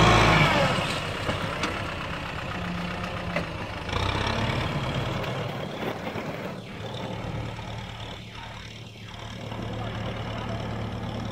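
Farm tractor engine running steadily as the tractor drives off through the field, its sound easing off in the first second and fading further as it pulls away.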